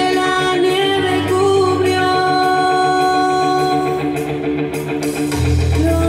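Show music with singing played loud over a stage sound system: long held notes over a deep bass that swells in about a second in and again near the end.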